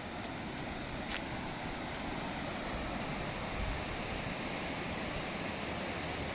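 Rushing river: a steady, even roar of flowing water.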